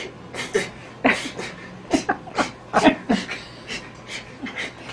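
A man's voice making short, breathy monkey-like noises in quick irregular bursts, voicing a monkey hand puppet.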